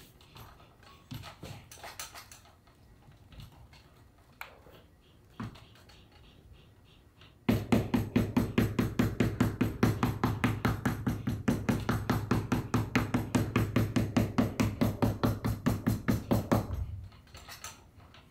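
Rapid, even tapping on the saddle's glued seat leather, about six strikes a second with a low, drum-like ring, starting about seven seconds in and stopping abruptly near the end; it is done to set the glue. Before it, a few quiet handling knocks.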